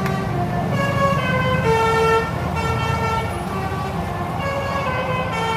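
Tour bus's telolet horn playing a tune: a string of musical air-horn notes stepping up and down in pitch, over a low engine rumble.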